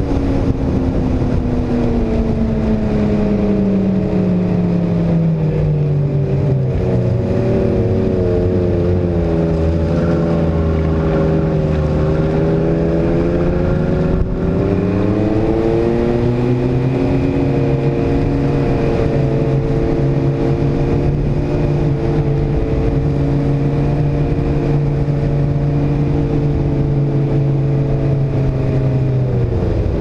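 Ski-Doo snowmobile engine running as the sled travels, its pitch falling over the first few seconds, holding steady, rising again about halfway through, then dropping near the end as the sled slows.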